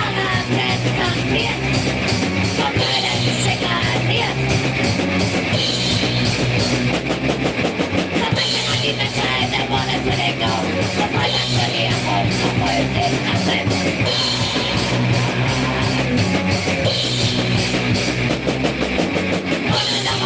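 Punk rock band playing live in a rehearsal room, with loud guitars over a fast, steady drum beat and cymbal crashes every few seconds.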